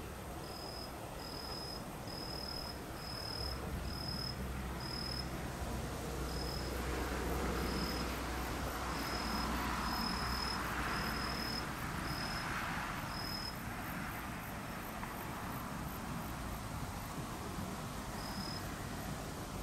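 An insect chirping in short, high-pitched pulses about once a second; the chirps stop about two-thirds of the way through and come back once near the end. A low rumble with a hiss swells and fades through the middle.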